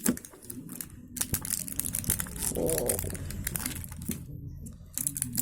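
Skincare product packaging being opened by hand: irregular crinkling, rustling and tearing of the box and wrapping, with small clicks. It grows busier and louder from about a second in.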